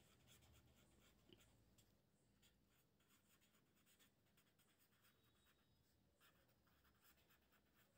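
Very faint scratching of a pen writing on paper in short, irregular strokes, barely above near silence.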